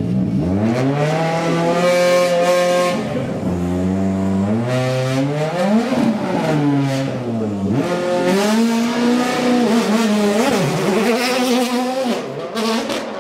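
Ford Fiesta WRC rally car's turbocharged 1.6-litre four-cylinder engine revving hard during donuts and wheel spins, its pitch climbing sharply at first and then rising and falling several times, with tyres squealing.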